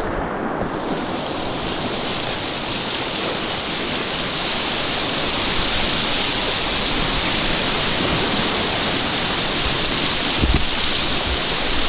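Steady rushing of water in a mountain stream, with a couple of low bumps near the end.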